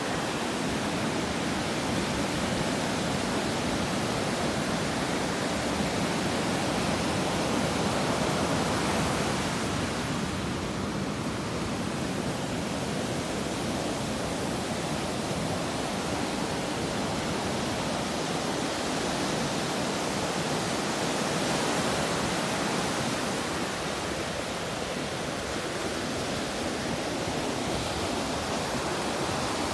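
Ocean surf: waves breaking and washing up a sandy beach, a steady rushing hiss that swells a little louder now and then.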